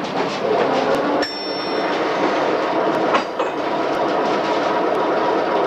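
Streetcar running along its track, heard from inside the car: a steady rumble and rattle of wheels and car body, with a few sharp clicks.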